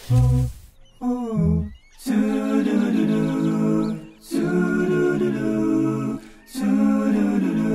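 Background music sung by voices alone, humming in harmony in held phrases of about two seconds with short breaks, starting about two seconds in. Before that come two short low sounds.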